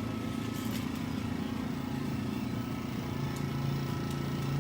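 Air compressor running steadily, a constant motor hum supplying air to an airbrush.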